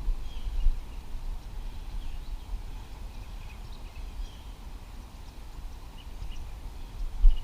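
Wind buffeting the microphone in uneven low rumbling gusts, with a few faint, short bird chirps.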